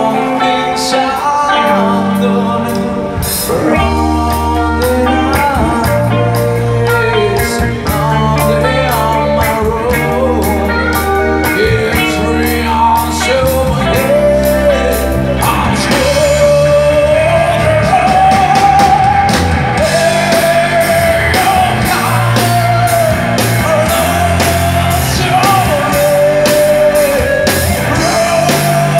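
Live rock band playing: a lead vocalist singing over electric guitar, bass guitar and drums, with long held sung notes in the second half.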